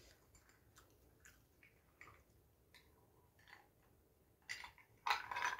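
Someone drinking an iced soft drink from a glass: faint, scattered clicks of ice against the glass, then two louder short noisy sounds near the end.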